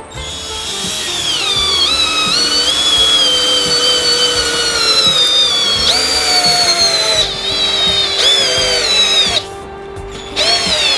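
Favourite DC 1802 cordless drill/driver running with a high whine whose pitch sags slowly, jumps back up about six seconds in, and stops suddenly about nine seconds in, followed by a short burst near the end. Background music plays underneath.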